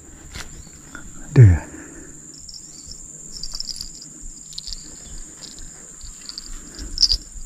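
Insects by the river: a steady high-pitched drone with scattered high chirps. About a second and a half in, a single short, loud sound falls quickly in pitch.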